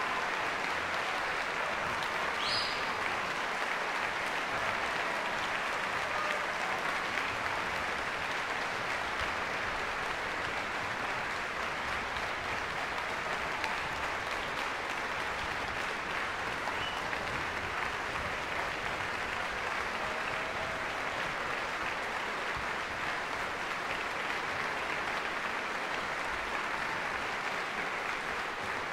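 Large audience applauding steadily, with one short high-pitched sound about two and a half seconds in.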